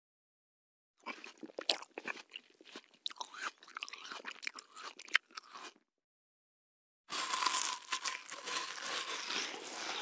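A person biting and chewing crunchy food up close: a second in, irregular crunching chews start and run for about five seconds. After a short pause, a second, denser bout of crunching starts about seven seconds in.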